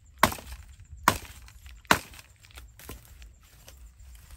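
A machete chopping a branch on the ground: three sharp strikes about a second apart, then a few lighter knocks.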